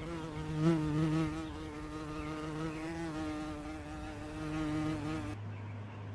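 A flying insect buzzing steadily close by, its pitch wavering slightly as it moves; the buzz stops abruptly about five seconds in.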